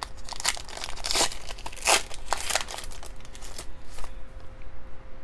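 Plastic wrapper of a Donruss Optic football card pack crinkling as it is handled and torn open: a quick flurry of crackles and rips that thins out after about three and a half seconds.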